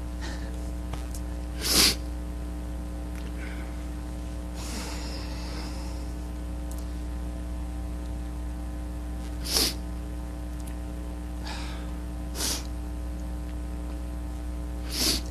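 Four short, sharp puffs of breath from a person, a few seconds apart, over a steady electrical mains hum. A faint rustle comes between the first and second puffs.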